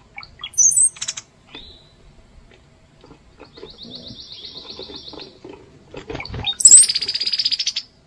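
Birds calling: high thin whistles each followed by a rapid dry rattle, once about half a second in and again near the end. A softer, fast, even trill comes in between.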